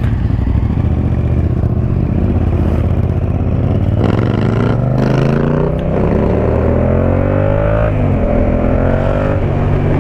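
Yamaha MT-07's 689 cc parallel-twin engine through an Akrapovic 2-into-1 carbon exhaust, heard from the rider's seat while riding. It pulls steadily, then accelerates with a rising pitch from about four seconds in. The pitch drops near eight seconds and climbs again.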